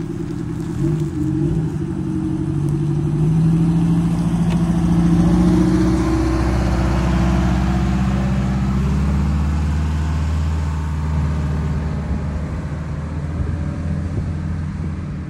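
Diesel engine of a Prevost motorcoach pulling away and driving off. Its note rises for the first few seconds, drops about six seconds in, then holds steady as the sound slowly fades.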